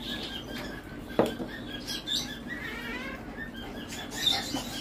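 Close eating sounds: dal sipped and slurped from a small ceramic bowl and rice mixed by hand, with one sharp knock a little over a second in.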